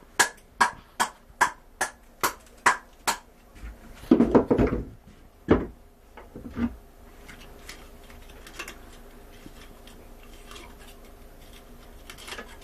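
A conch shell being struck hard and steadily, about two to three knocks a second, each with a short ring. Then come a few heavier, duller knocks and some clatter before it quietens to faint clicks. The knocks break open the back of the shell, releasing the vacuum that holds the conch inside.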